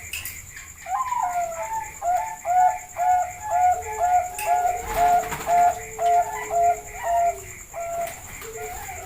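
Zebra dove (perkutut) song: an opening rising note, then a run of about a dozen short, evenly spaced coos, roughly two a second, with a lower drawn-out note underneath in the middle.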